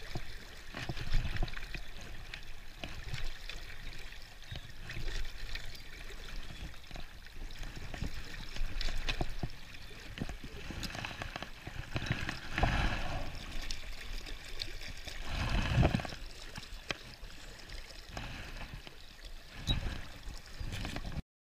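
Strong river current rushing and gurgling around a net handle held in the water, with louder surges about twelve and sixteen seconds in; it stops abruptly near the end.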